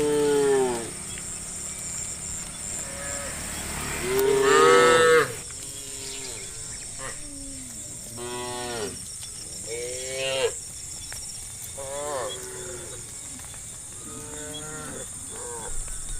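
Herd of cattle mooing: a string of drawn-out moos from several cows, one after another, the loudest about four seconds in.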